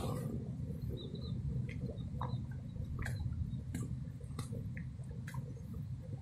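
Outdoor riverbank ambience: a low steady rumble with scattered faint ticks, and a few short high chirps about a second in.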